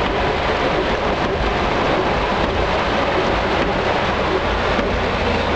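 Heavy rain drumming on a car's roof and windscreen, heard from inside the cabin as a dense, steady hiss, with a low rumble underneath.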